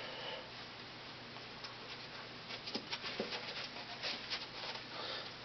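Faint, scattered light taps and rustles over a steady background hiss, starting about one and a half seconds in.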